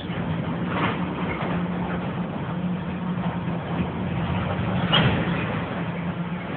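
Freight train of tank cars rolling by: a steady rumble and low hum with a few short metallic clanks, the loudest about five seconds in.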